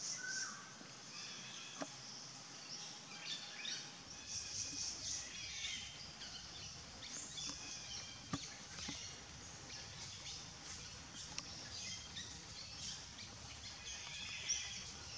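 Outdoor ambience of many small birds chirping and calling, with a couple of sharp clicks.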